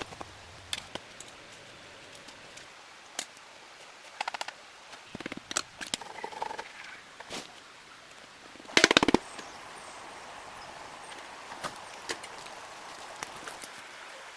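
Wood being worked: scattered sharp cracks and knocks over a steady hiss of rain, with a loud rapid crackle of wood about nine seconds in.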